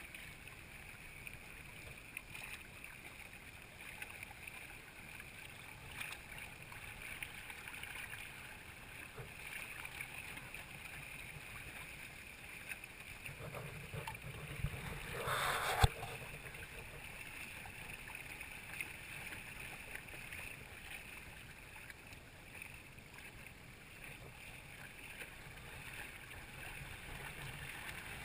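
Water rushing and splashing along the hull of a Hobie Tandem Island sailing kayak under sail, heard through a GoPro's waterproof case. About halfway through it swells into a louder rush that ends in one sharp knock.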